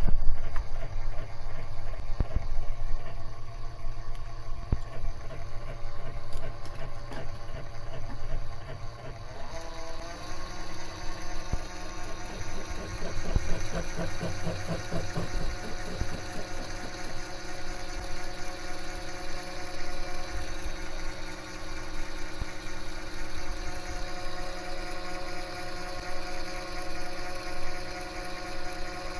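Warco mini lathe running, its motor and change-gear train giving a steady mechanical hum with a whine; about ten seconds in the tones step up in pitch as the speed rises.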